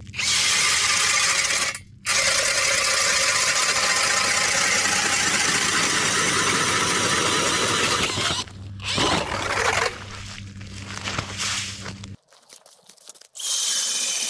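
Cordless drill spinning an ice auger down through lake ice. It runs steadily with a short break about two seconds in, turns softer and uneven after about eight seconds, stops about twelve seconds in, and runs briefly once more near the end.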